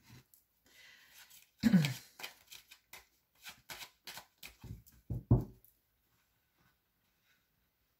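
Tarot cards being shuffled and handled, with a loud knock about two seconds in and two more a little after five seconds.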